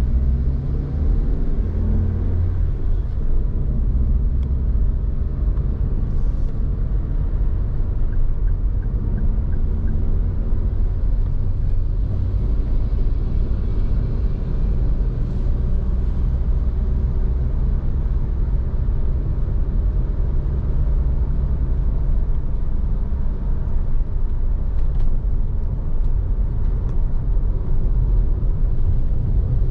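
Vehicle driving on a city road: a steady low engine and road rumble.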